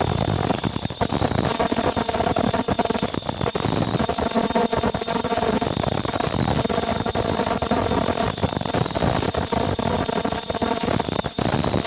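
Automated production-line machine with a belt conveyor running steadily at about 23 pieces a minute, feeding cardboard sheets: a continuous mechanical clatter of dense rapid clicks and rattles over a steady high whine.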